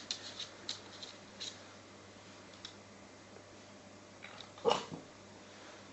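A small Maltese dog playing: a few light ticks in the first second and a half, then one short dog vocal sound about three-quarters of the way through, otherwise quiet room.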